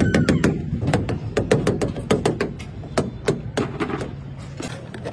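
Pointed metal rod jabbed rapidly through flattened pizza dough, its tip tapping the steel table underneath in quick, irregular taps, about four a second, getting quieter near the end. This is dough being docked (pricked with holes) before baking.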